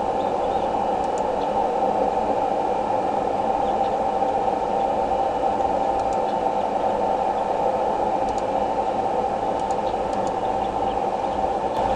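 Steady background hiss and hum on the nest camera's outdoor microphone feed, with a few faint, short high chirps now and then.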